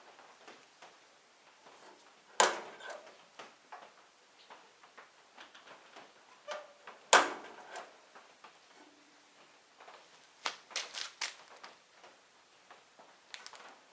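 Handling noise from tool box work: two sharp knocks about five seconds apart, each with a brief ring, then a quick run of smaller clicks and knocks near the end, over faint scattered ticking.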